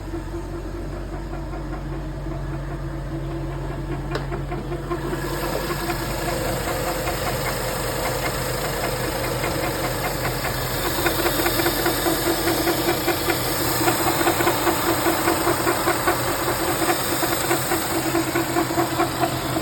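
BMW F10 535i's N55 turbocharged straight-six idling with a fast, even ticking over the engine note. The ticking grows louder and brighter about five seconds in and again around eleven seconds in. The owner does not know its cause.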